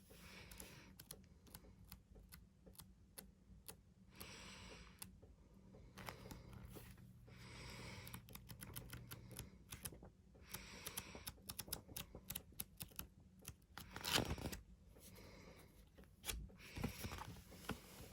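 Faint paper handling as the pages of a K-pop album photo book are flipped through: short swishes of turning pages every second or two, with small clicks and taps and one sharper knock about three quarters through.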